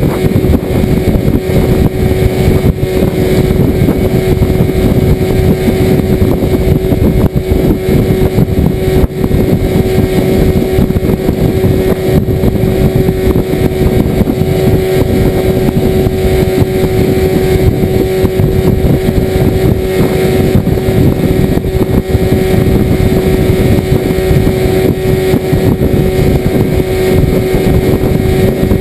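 Outboard motor running loud and steady at a constant cruising speed, pushing a small aluminium skiff; its pitch holds without change.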